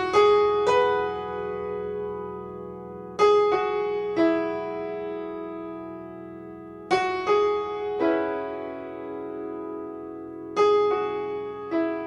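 Solo piano playing a slow, repeating figure: a group of three notes struck about every three and a half seconds, left to ring and fade before the next group.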